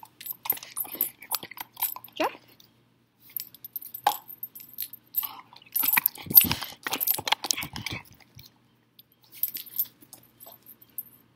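A Belgian Malinois chomping on a hard rubber ball close to the microphone: irregular crunching clicks, loudest about six to eight seconds in, then only a few faint ticks near the end.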